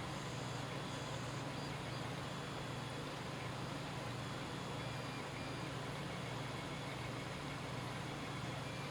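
Steady low hum over a faint even hiss, with no distinct events.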